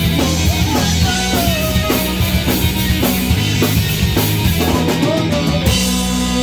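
Rock band playing an instrumental break: drum kit and bass under an electric guitar lead with bent, gliding notes. The drum hits stop about two-thirds of the way in while the guitar and bass carry on.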